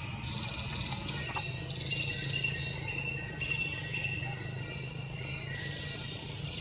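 Chorus of forest insects: several steady high-pitched buzzing trills overlapping, each switching on and off every second or so, over a low steady hum.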